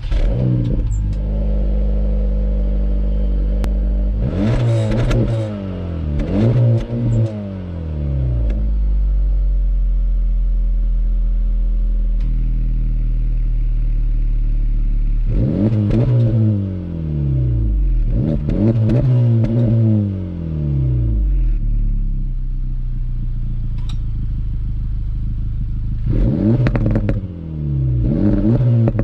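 Acura Integra Type S's turbocharged four-cylinder engine and exhaust idling steadily, then revved in short blips that rise and fall in pitch: a pair early on, a pair in the middle and one near the end. A few sharp pops and crackles come as the revs drop.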